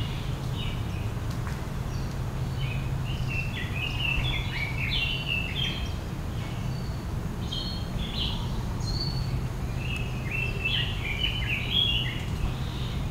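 Small birds chirping in clusters of quick, high notes that come and go every few seconds, over a steady low hum.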